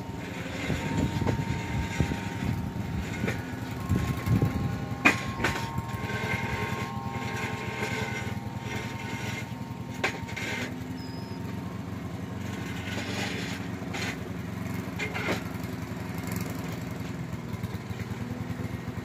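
Gas string trimmer's small engine running steadily at low speed, with a few sharp clicks.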